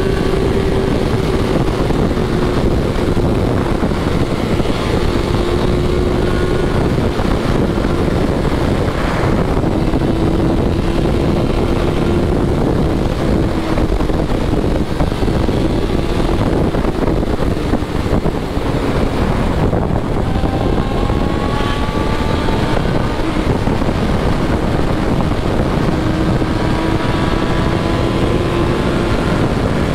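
BMW S1000RR inline-four engine running steadily at high road speed, under a heavy, even rush of wind noise on the microphone.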